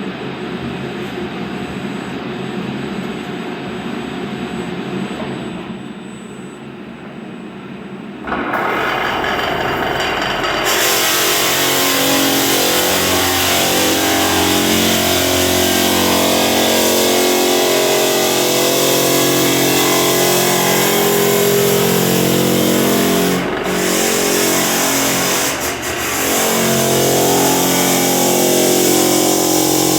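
A vacuum runs steadily. About eight seconds in, a floor drum sander starts up much louder and runs on, sanding heavy varnish off a wood floor with a little WD-40-type lubricant on the paper. Its motor pitch shifts under load, with two brief dips near the end.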